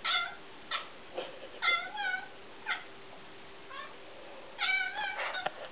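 Domestic cat chirping: about ten short, high chirps and brief meows, some bending in pitch, spaced irregularly with a quicker run near the end. It is the chattering of a cat fixed on a bug on the wall that she can't reach.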